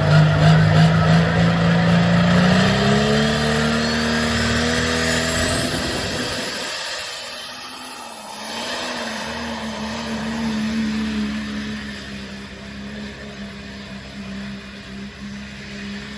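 Pro stock pulling tractor's turbocharged diesel engine running flat out under load, its pitch stepping up a couple of seconds in. The loud engine sound cuts away suddenly about six and a half seconds in, and a steadier, quieter engine note carries on after that.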